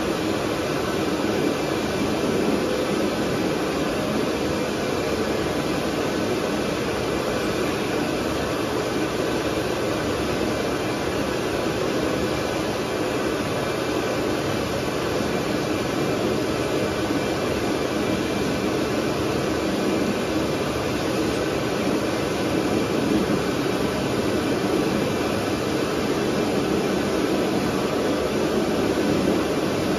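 FastDry automatic hand dryer running without a break, its fan blowing a steady rush of air while a hand is held under the sensor.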